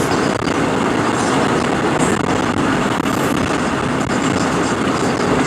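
Steady road and tyre noise of a moving car, heard from inside the cabin.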